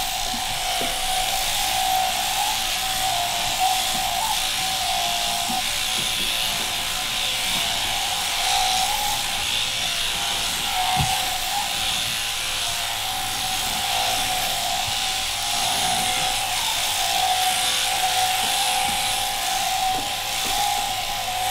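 Electric sheep-shearing handpiece, driven through a jointed overhead drive arm, running steadily as it shears a fleece off: a continuous steady buzz.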